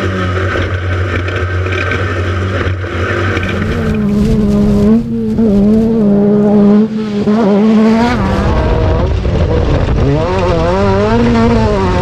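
Class 10 off-road race car's engine running hard at high revs, cutting out briefly twice around the middle as the throttle lifts, then revs swinging up and down near the end.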